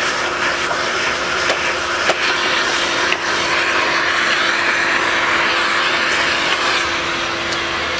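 A household vacuum cleaner running steadily, sucking hair and dust off a robot vacuum's brush, with a few faint clicks of debris.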